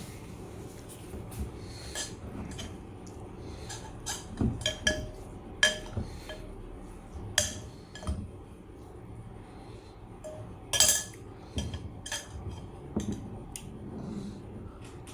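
Metal utensils clinking against dishes in an irregular series of sharp clinks, some ringing briefly. The loudest clink comes about two-thirds of the way through.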